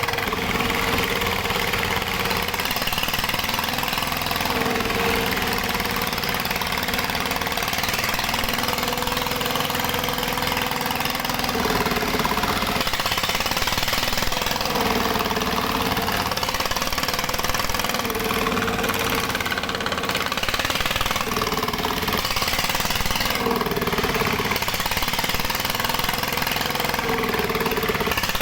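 Dongfeng single-cylinder diesel engine running steadily at a gold-mining set-up, with a mid-pitched hum that comes and goes every few seconds over it.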